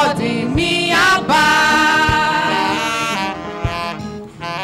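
Amplified church worship music: women singing a slow hymn melody into microphones over instrumental backing, with a soft low drum beat about every second and a half.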